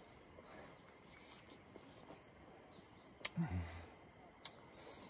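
Faint steady high-pitched insect trill, cricket-like, over a quiet outdoor hiss. About three seconds in comes a sharp click, then a brief low hum of a voice, and another click a second later.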